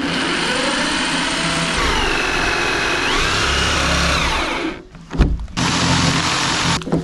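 Electric drill with a hole saw cutting a hole through the plastic wall of a water tank, the motor whine shifting in pitch as the saw bites. It pauses briefly about five seconds in, runs again, and stops just before the end.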